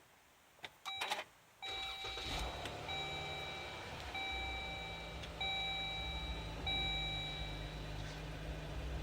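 A few clicks from the Jeep's ignition, then the car's warning chime beeping about five times in an even rhythm. A steady low hum starts with the chime and carries on beneath it.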